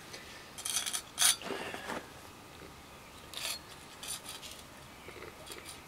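A small metal hand tool scraping the stone slab around a freshly glued steel spigot in a handful of short, scratchy strokes, clearing excess resin.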